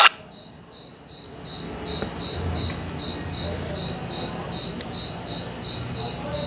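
Crickets chirping steadily in an evenly pulsed rhythm of about three to four high chirps a second, a cartoon sound effect for dead silence.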